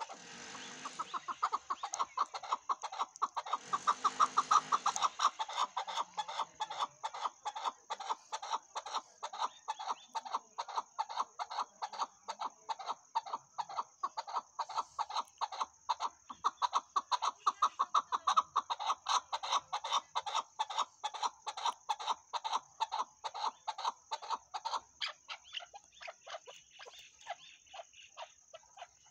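Chukar partridge calling: a long series of short, sharp chuck notes, about three a second, growing quieter and sparser near the end.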